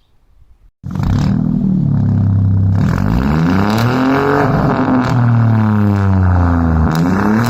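Straight-piped BMW 1 Series F20 exhaust starting up about a second in, then revved repeatedly, its pitch rising and falling with each rev.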